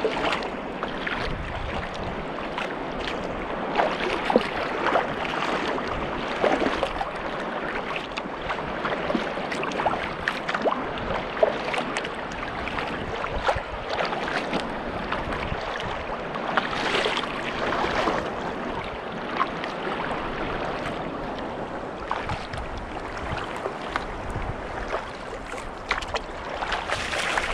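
Water splashing and sloshing around a sea kayak under way in lively waves: paddle blades dipping and waves slapping the hull in irregular splashes over a continuous wash of water.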